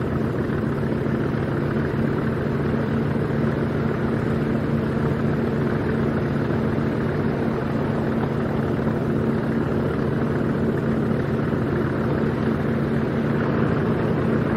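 English Electric Class 40 diesel locomotive's 16-cylinder engine running at a steady note, a low drone with several steady tones, growing a little louder near the end.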